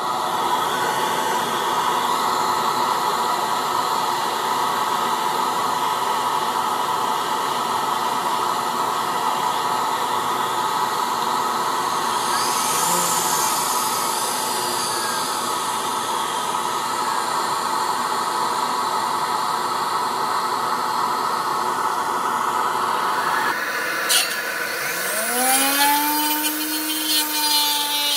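Homemade circular saw with a 795 motor and a 5.5-inch blade, switched on and spinning free with a steady whine. Near the end its pitch sags and swings as the blade starts into wood.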